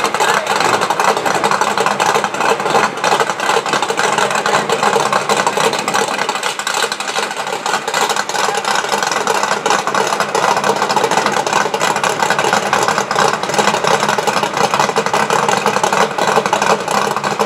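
A drag car's engine idling steadily as the car creeps up and sits staged at the starting line.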